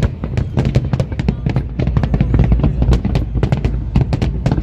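Large fireworks display: a rapid, dense string of bangs and crackles, many a second, over a low rumble.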